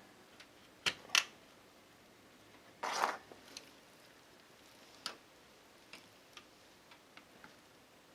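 Hardware being handled during a PC build: a few sharp plastic-and-metal clicks, with a brief scraping rustle about three seconds in, then faint ticks.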